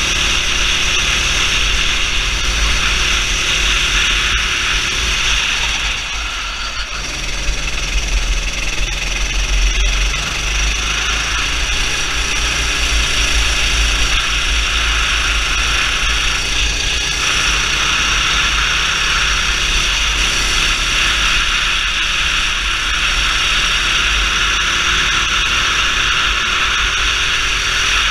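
Go-kart engine running at racing speed, with heavy wind buffeting on the onboard camera microphone. The sound drops briefly about six seconds in, then picks up again.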